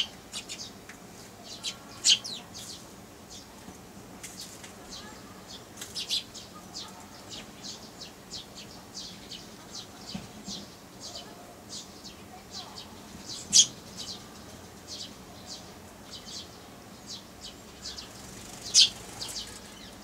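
Eurasian tree sparrows chirping: a steady run of short, high chirps, a few of them much louder.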